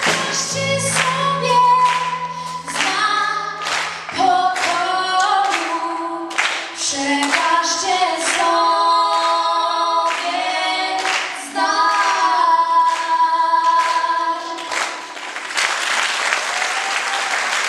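Two women singing in harmony through microphones, holding long notes as the song ends; audience applause breaks out about two seconds before the end.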